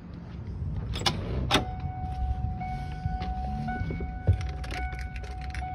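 Two sharp clicks of the Hummer H1's door latch, then a steady electronic warning tone from the dash that keeps sounding, with keys jangling and a thump about four seconds in as someone gets into the driver's seat.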